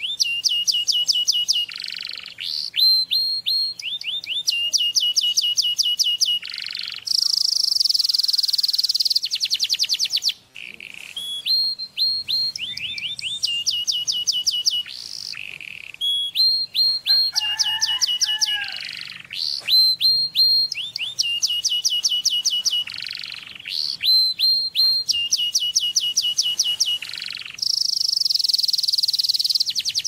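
Male domestic canary singing: long phrases of fast repeated down-slurred notes, alternating with sustained high buzzing rolls, with short pauses between phrases.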